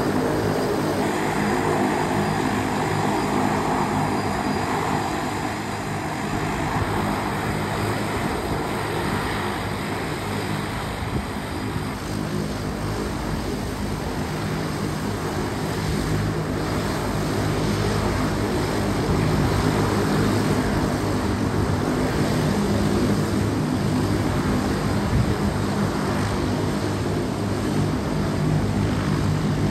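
Twin turboprop engines of a DHC-8 Q300 (Dash 8-300) running while the aircraft taxis: a steady propeller drone with several low hum tones. It dips slightly midway and grows louder again in the second half.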